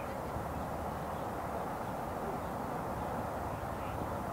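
Steady outdoor background noise, an even low hiss with no single sound standing out.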